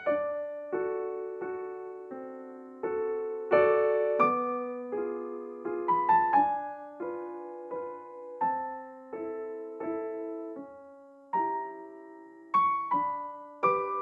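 Background music: slow, gentle piano, single notes and chords struck one or two a second and left to fade.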